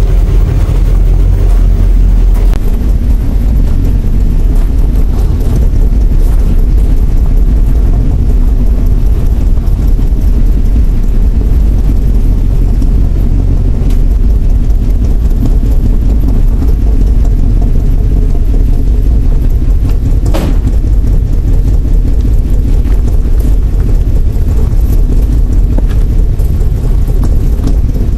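1960 Ford Galaxie Starliner's engine running at a steady idle, heard at the tailpipe, freshly started after restoration work. The exhaust is a deep, even rumble, with one short sharp click about two-thirds of the way through.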